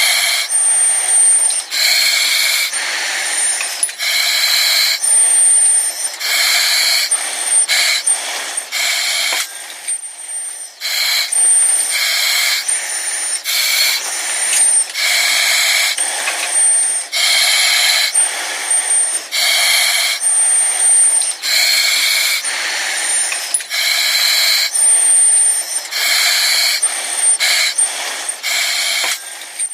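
Breathing through an oxygen mask: hissing breaths in and out, alternating about once a second, with a short thin high whistle on alternate breaths.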